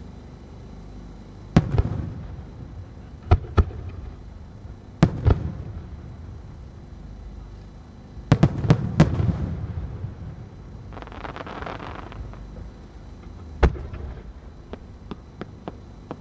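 Aerial firework shells bursting: single sharp bangs, each trailing off in a low rumble. A quick cluster of four bangs comes about halfway, then a short spell of hiss, and a run of small light pops near the end.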